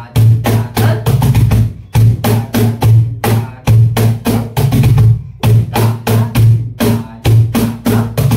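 Clapbox wooden cajon played with the hands in the garba teentaali rhythm (Dhin TaTa Dhin Ta Dhin TaTa TatitaTa): deep bass strokes mixed with sharp slaps, the cycle repeating about every second and a half to two seconds. It is played as the gamak variation, with a foot on the front panel to bend the bass strokes.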